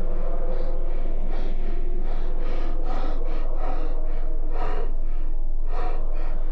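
A person's heavy, quick breathing with gasps, about two breaths a second, the strongest two gasps near the end. A steady low hum runs underneath.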